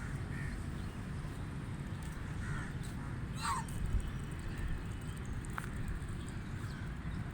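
Canada geese honking: a few faint honks, with one clearer honk about three and a half seconds in, over a steady low rumble.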